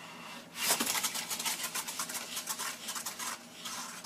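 Homemade card spinning wheel flicked by hand and whirring on its centre pin against the backing board. It makes a rapid scratchy ticking that starts about half a second in and fades out after about three seconds.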